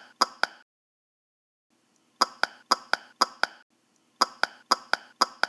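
Three quick runs of sharp, ringing taps, evenly spaced at about four a second, with short silences between the runs.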